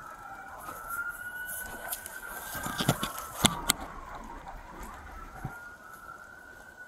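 Siren wailing with a slow rising and falling pitch, heard from inside a police patrol car. A few sharp clicks sound about three seconds in.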